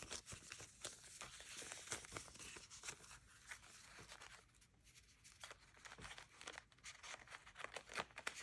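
Faint rustling of old paper and a photograph being handled, with scattered light clicks and taps; it goes quieter for a moment about halfway through.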